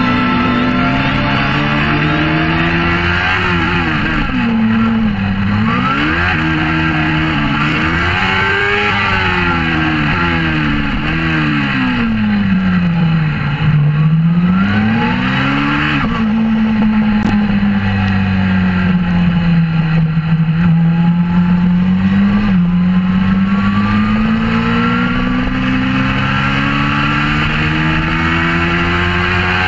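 Suzuki GSX-R600 K4 inline-four engine through an aftermarket Werx exhaust, heard from an onboard camera at track speed: the revs climb and drop sharply several times as it changes gear, sink to a low note for a slow corner about halfway through, jump back up, then climb steadily towards the end.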